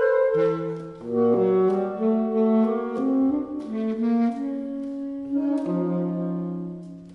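Alto, tenor and baritone saxophones playing together in a chamber trio, sustained notes overlapping in three voices with the baritone holding the low line. The playing dies away near the end.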